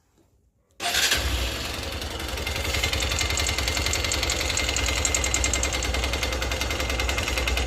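Honda XR 150's single-cylinder four-stroke engine starting about a second in and running steadily with a rapid, regular knock. The mechanic puts the knock down to the piston: piston slap from a piston and rings worn after the engine ran short of oil.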